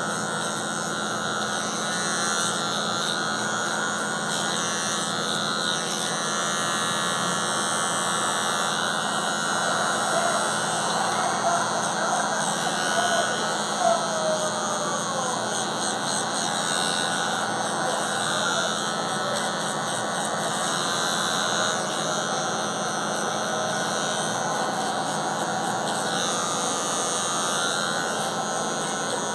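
Electric hair clipper with a 1.5 guard running with a steady hum as it cuts a fade into curly hair, with voices and effects from a mobile game on a phone underneath.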